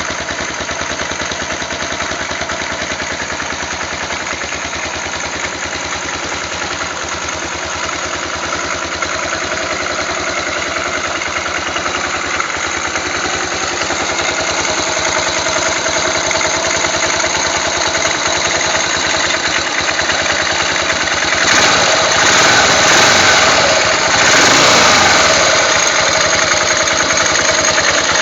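Yamaha XT 500 single-cylinder four-stroke engine idling steadily, its timing chain tensioner just adjusted. It is revved up twice near the end, then settles back to idle.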